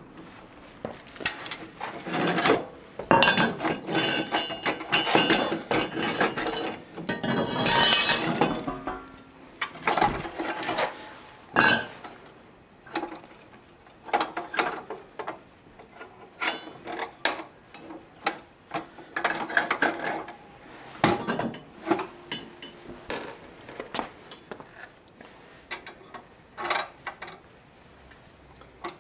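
Rusty steel tiller tines and their shaft clanking and clinking as the tines are worked off the transmission shaft by hand: a dense run of metal clatter and knocks for the first several seconds, then scattered clinks and knocks.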